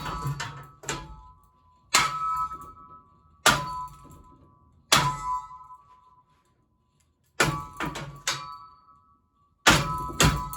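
A metal shovel striking a ceiling fan again and again: about eight heavy blows at uneven intervals, each a clang with a brief metallic ring.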